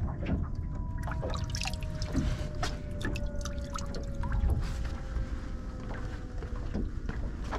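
Water splashing and dripping at the side of a boat, with many small knocks and clicks, over a steady low rumble and a faint whine that falls slowly in pitch.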